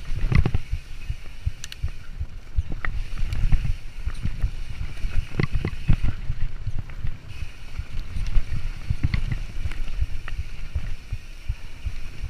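Mountain bike ridden fast down a rooty forest singletrack: a steady low rumble with frequent sharp knocks and rattles as the bike goes over roots and small rocks.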